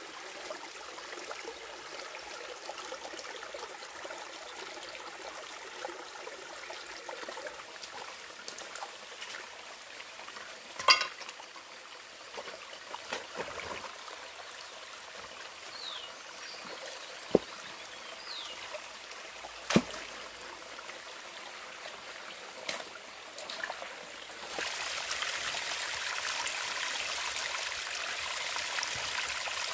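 Shallow forest stream trickling over rocks, with a few sharp knocks. Near the end the water grows louder and brighter as it runs in a thin sheet over a rock slab.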